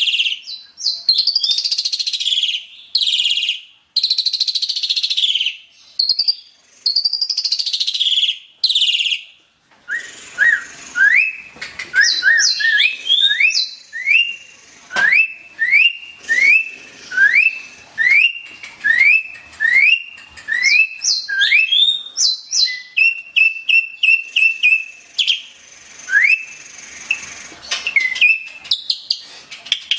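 Asian pied starling (jalak suren) singing. For about the first ten seconds it gives loud, harsh, scratchy phrases; then it switches to a long run of quick rising whistles, about two a second, with a short rapid trill near the end.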